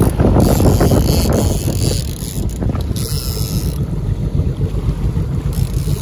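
Wind buffeting the microphone, a loud, irregular low rumble, a little stronger in the first two seconds.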